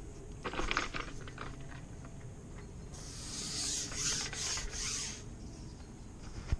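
Close rubbing and rasping handling noise. A few quick clicks and rustles come about half a second in, then a hissing rasp in four or five strokes around the middle.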